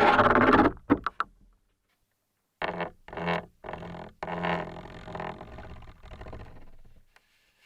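Creaking picked up through a piezo contact microphone. A loud creak at the start breaks into a few clicks, then after a pause a run of creaks follows, the last one drawn out and fading.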